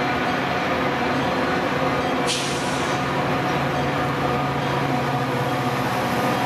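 Metra F40PH diesel-electric locomotive approaching with a train of bilevel coaches, its EMD 16-cylinder two-stroke diesel running with a steady drone. A short hiss comes about two seconds in.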